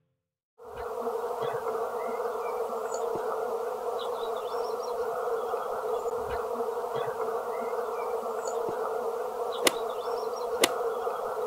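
Many bees buzzing together around a blossoming tree, a steady hum that starts about half a second in. Two short, sharp clicks come near the end.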